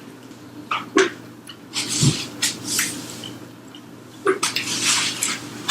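Close-miked mouth sounds of someone eating fried chicken with sauce: wet chewing and lip smacks in two short clusters, about two seconds in and again near the end.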